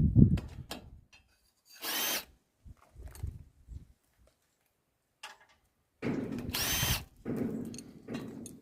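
Cordless power driver spinning a socket on the log splitter's leg bolts in two short runs, a brief one about two seconds in and a longer one of about a second near the six-second mark, each with a high motor whine. Knocks and metal rattles come at the start and between the runs.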